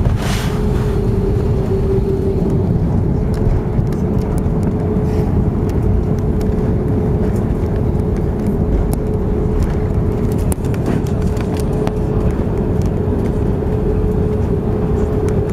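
Loud, steady rumble in the cabin of an Airbus A330-200 rolling out on the runway just after landing, with a steady hum under it. There is a short hiss just after the start and a few faint rattles midway.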